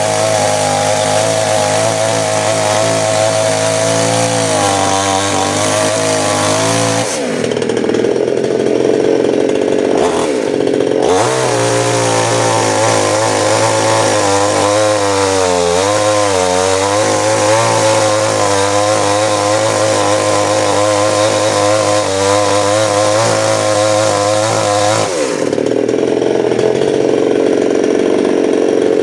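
Two-stroke chainsaw engine run hard at high revs, falling back toward idle about 7 s in, revved back up a few seconds later with a wavering pitch, then dropping back down again near the end.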